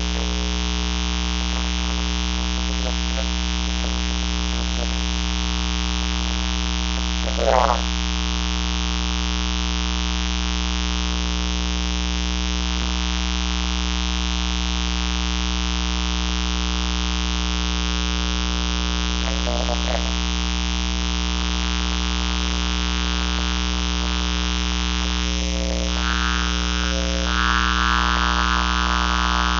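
Steady electrical mains hum, a buzz of several fixed low tones running through the audio. A short louder sound breaks in about seven and a half seconds in, a fainter one near twenty seconds, and a band of hiss rises in the last few seconds.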